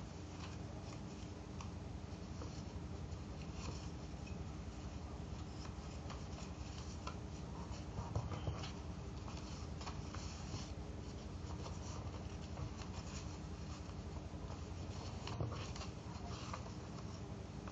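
Paper being folded and creased by hand: soft rustling and rubbing as fingers work along the folds, with a few small taps. A steady low hum runs underneath.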